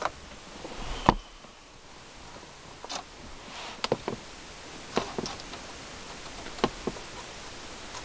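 Scattered light clicks and knocks of a car-stereo wiring harness being handled behind a truck's dashboard, over a steady hiss; the sharpest knock comes about a second in.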